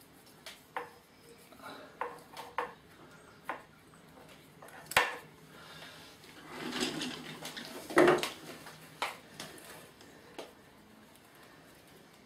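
Hand tool and fingers knocking, clicking and scraping against a bonsai pot and its soil while the tree is settled in: a series of separate clicks, the loudest about five and eight seconds in, with a rustling scrape of soil around seven seconds.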